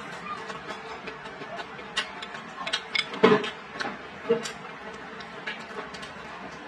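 A person chewing a mouthful of stir-fried chicken and vegetables close to the microphone: wet mouth clicks and lip smacks, with small taps of wooden chopsticks. The loudest few come a little past the middle.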